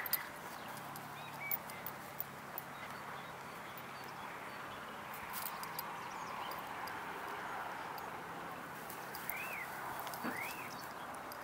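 Faint outdoor ambience: a steady soft hiss, with a few small rustles and ticks in the first few seconds as a puppy steps through dry grass, and two short rising-and-falling chirps near the end.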